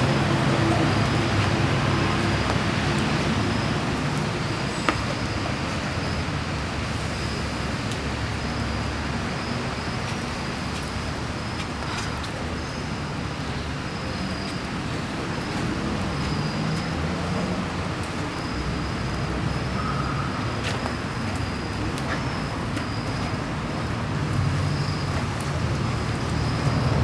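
Steady city traffic rumble, easing a little midway and growing louder again near the end, with a faint high chirping note that comes and goes throughout.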